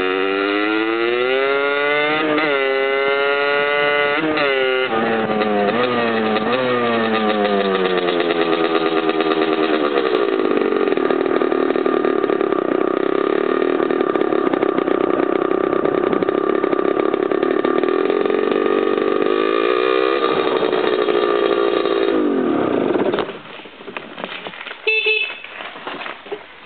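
Aprilia RS50 two-stroke engine with a 70cc Polini cylinder kit, revved up and down several times, then held at a steady rev for about ten seconds, revved once more and shut off near the end. A brief loud sound follows about two seconds after it stops.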